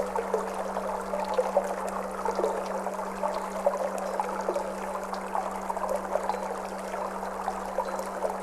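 Water flowing and trickling steadily, with small splashes, over a steady low sustained tone from a Tibetan singing bowl.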